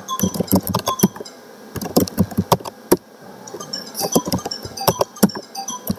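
Typing on a computer keyboard: a run of irregular keystroke clicks with a few short pauses.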